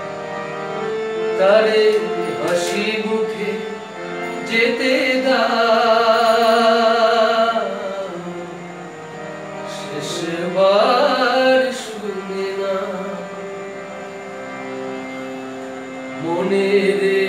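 A man sings long held notes with vibrato in several phrases to harmonium accompaniment. The harmonium's reed chords sustain under the voice and carry on alone in the gaps between phrases.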